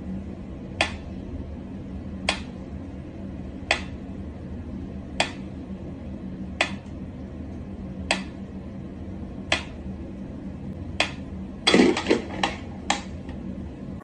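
Mechanical pendulum metronome ticking slowly and evenly, about one sharp tick every second and a half, over a steady low hum. Near the end comes a brief burst of louder knocks and quick clicks.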